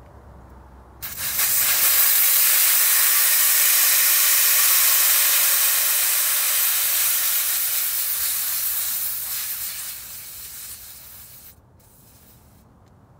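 Air hissing out of an off-road truck tyre's valve stem as the tyre is let down. It starts suddenly about a second in, tapers off and cuts out near the end.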